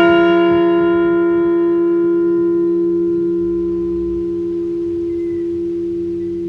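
Liberty Bell replica ringing on after a single strike, a memorial toll for one deceased veteran. The ring fades slowly, its higher overtones dying away within a few seconds while the main tone holds on.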